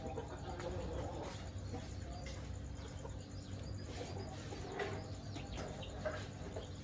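Chickens clucking and calling softly, with short chirps scattered throughout, over a steady low hum.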